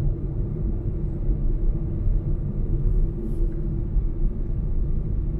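Steady low road and tyre rumble inside the cabin of a 2021 Tesla Model Y electric car cruising on a paved mountain road, with no engine sound beneath it.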